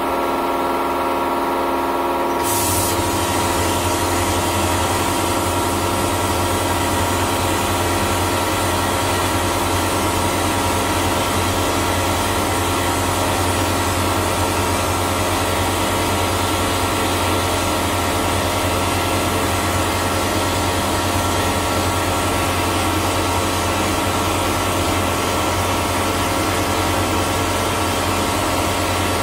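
Vapor blasting cabinet: the slurry pump runs with a steady hum, and about two and a half seconds in the blast gun opens up, a steady hiss of compressed air and water-abrasive slurry jetting from a 3D-printed plastic nozzle onto a part.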